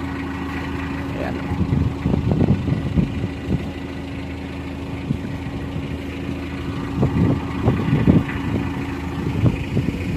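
Motor vehicle engine idling steadily, with gusts of wind rumbling on the microphone now and then.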